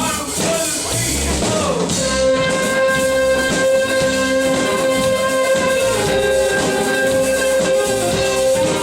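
Live smooth jazz band playing with drums; about two seconds in a long held note enters and sustains over the rhythm.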